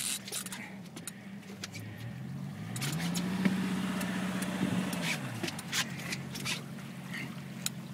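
Yamaha 225 outboard motor running, its pitch rising about two to three seconds in, holding for a couple of seconds, then falling back a little after five seconds in as the throttle is eased. Scattered light clicks sound over it.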